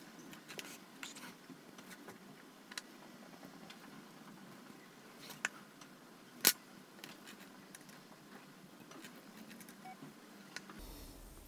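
Quiet handling sounds of small tools and wire during soldering work: scattered faint ticks and taps, with one sharper click a little past the middle.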